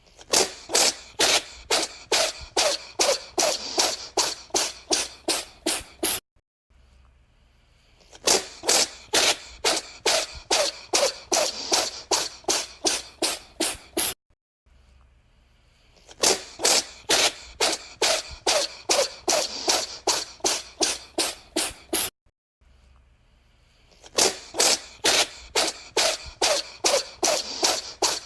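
A cat sneezing over and over in rapid sharp bursts, about three a second. Each run of a dozen or more sneezes cuts off abruptly and starts again after a short pause, four times over.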